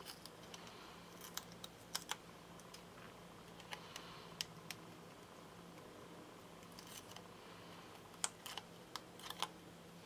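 Faint, irregular small clicks and crinkles of hands handling an Action Wobble, a plastic adhesive spring with peel-off backing, against card stock, over a low steady hum.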